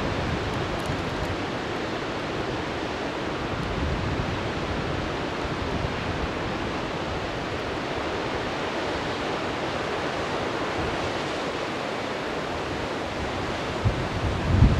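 Steady rushing of the Rhone mountain torrent over its rocky bed. Wind rumbles on the microphone near the end.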